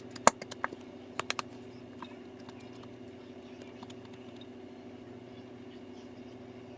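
A quick run of sharp clicks and taps, like small hard objects being handled, in the first second and a half, then only a steady low hum.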